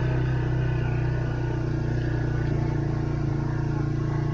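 A farm vehicle's engine running steadily at an even speed, a constant low drone.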